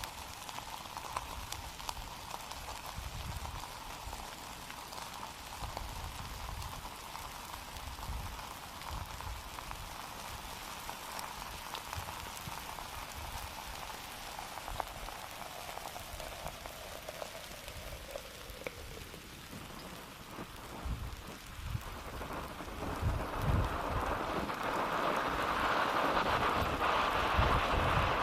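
Lava lake churning and spattering: a crackling patter over low rumbles, growing louder over the last several seconds.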